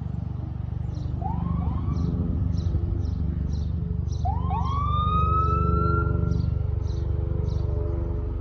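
Fire engine siren over the truck's heavy engine rumble: the siren sweeps up in pitch twice briefly, then about four seconds in winds up again and holds a high tone for a second or two before dying away. A faint high ticking repeats about twice a second.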